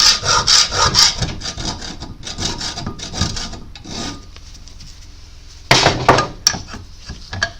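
Hacksaw strokes scraping a shallow groove into a steel pin held in a vise, about three strokes a second, easing off after about four seconds. A sharp metallic clatter follows a little before the end.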